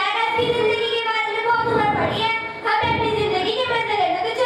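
A girl singing into a stage microphone, holding long notes that bend in pitch, with a short breath pause about two and a half seconds in.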